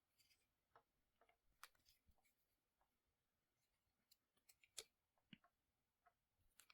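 Near silence broken by faint, scattered small clicks and taps of handling, about a dozen, the loudest a little under five seconds in.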